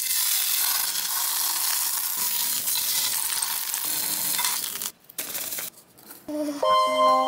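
Chicken breast frying in an oiled electric skillet: a steady sizzle that stops about five seconds in. A short rustle follows, then music with bell-like mallet tones starts near the end.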